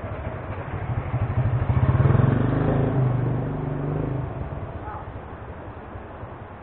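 A passing motor vehicle's engine, swelling to a peak about two seconds in and then fading away.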